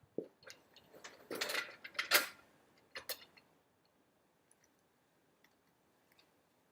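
A few sharp clicks and a short rattling scrape in the first three seconds, then quiet.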